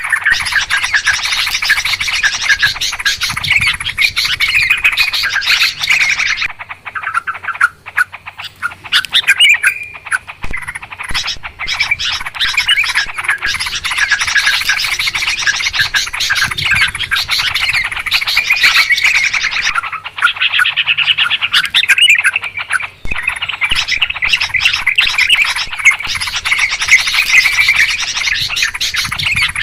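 Yellow-vented bulbuls (trucukan) chattering noisily, many rapid bubbly calls overlapping almost without pause, with a couple of brief lulls.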